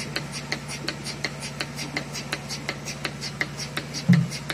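Portable bucket milking machine running while milking a cow: a steady low hum from the vacuum pump with rapid, regular clicking. A short low thump about four seconds in.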